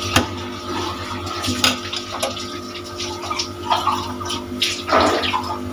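Liquid running or pouring, with a steady hum underneath and scattered light clinks.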